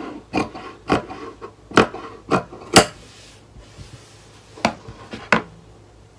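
Scissors cutting through knit fabric: a run of sharp blade snips, the loudest near the middle, then a short pause and two more snips near the end.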